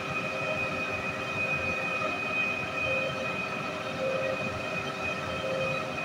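Sany truck-mounted concrete pump running as its boom unfolds: the engine and hydraulic system make a steady high whine over a low rumble.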